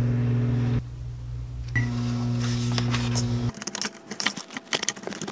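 A kitchen appliance's steady electrical hum, breaking off about a second in and starting again with a brief high beep, then stopping abruptly. After that a spoon clicks and scrapes as rice is stirred in a plastic bowl.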